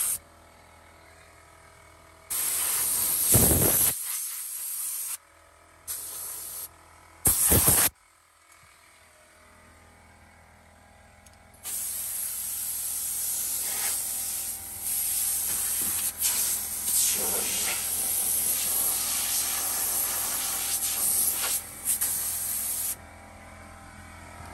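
Compressed-air blow gun on an air hose hissing: three short blasts, then a long, nearly steady blast of about eleven seconds.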